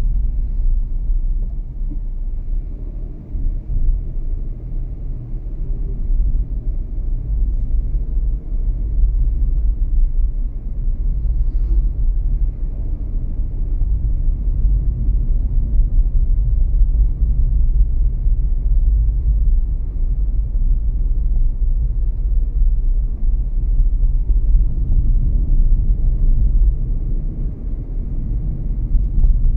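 Car driving along a road: a steady low rumble of engine and tyre noise, with faint tones rising and falling in pitch as the speed changes.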